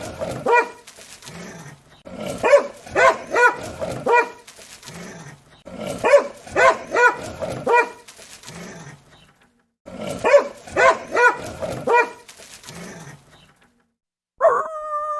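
A dog barking angrily in volleys of five or six quick barks, about every four seconds, with lower growling between them. About a second before the end a long howl begins.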